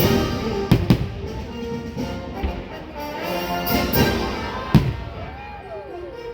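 Orchestral fireworks-show music with fireworks bursting over it: two sharp bangs close together about a second in, and another just before five seconds.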